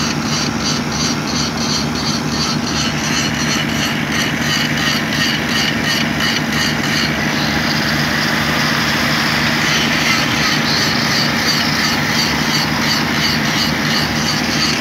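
Engine of a truck-mounted rail welding machine running steadily with a low hum. A fast, high rhythmic ticking sits on top, drops away about seven seconds in, and returns more faintly.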